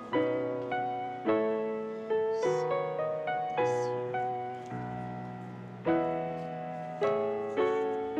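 Background piano music: chords and melody notes struck about once or twice a second and left to ring out.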